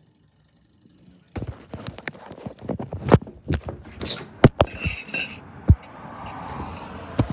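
A quick, irregular run of knocks and clicks from footsteps and the recording phone being handled. It starts about a second and a half in. A steady hiss comes in past the middle.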